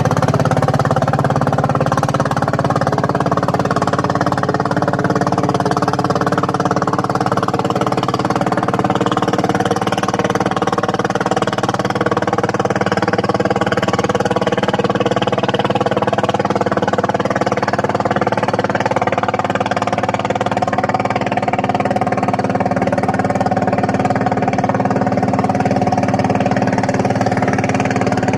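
Tianli 1130 single-cylinder diesel boat engine running steadily at constant speed.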